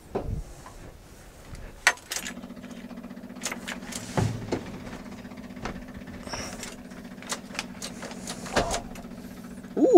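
Ignition keys jingling and clicking in a 1981 Jeep J20's switch. About two seconds in, a steady low electrical hum comes on and keeps running, with more scattered clicks over it.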